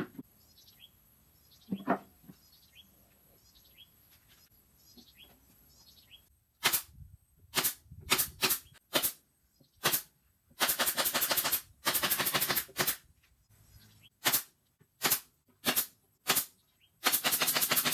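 Sharp single clicks or knocks, and several bursts of about a second of rapid, even clicking, from tool work on a wooden speaker cabinet.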